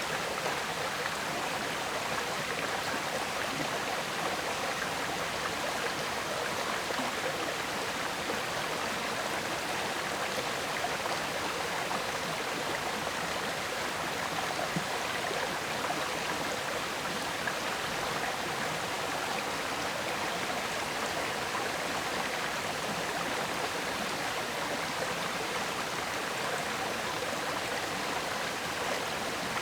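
River water flowing and gurgling over stones, a steady rushing with no change.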